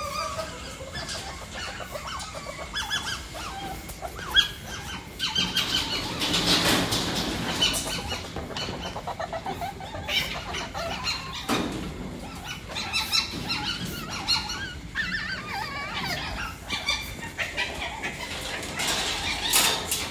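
Caged palm civets giving repeated short, high, warbling squeaks and chirps, with a sharp knock about four seconds in and another near the middle.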